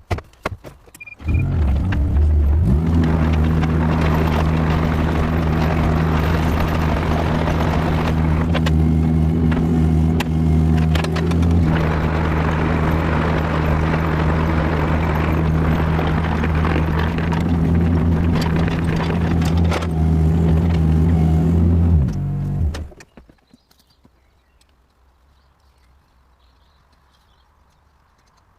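Kubota KX161-3 excavator's diesel engine starting about a second in after a few clicks, rising in pitch as it is throttled up, then running steadily. It winds down and stops about three-quarters of the way through.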